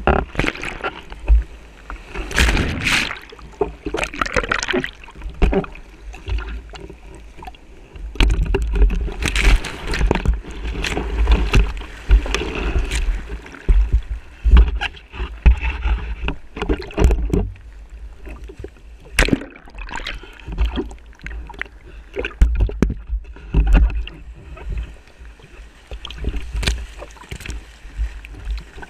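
Breaking surf and whitewater splashing and sloshing against a stand-up paddleboard, heard close at the waterline, with many irregular sharp splashes and knocks over a low rumbling buffet.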